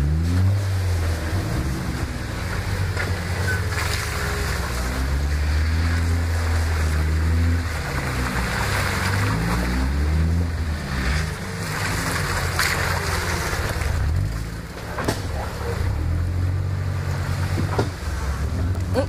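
Jeep Wrangler engine running at low revs, rising and falling as it is throttled through a muddy water hole, with muddy water sloshing and splashing around the tyres.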